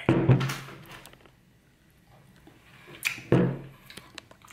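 Eating sounds: biting into and chewing king crab meat coated in cheese sauce, in two short loud bursts, one at the start and one about three seconds in.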